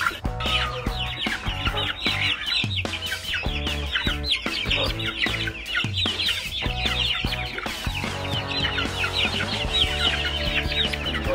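A flock of young Dong Tao chickens peeping non-stop, a dense run of short, high, falling chirps, over background music.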